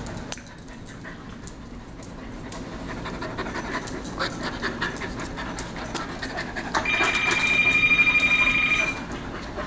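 A Carolina Dog and a collie play-fighting close up, panting, with many quick clicks and scuffles from their mouths and claws on a tile floor. About seven seconds in, a high, steady tone sounds for about two seconds and is the loudest thing heard.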